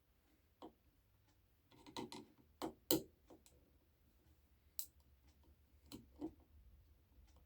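Scattered light clicks and taps of a small tool and fingers working on an RC plane's spinner cone, taking out its retaining screws to remove the cone. The clicks come irregularly, a cluster around the middle and a few near the end.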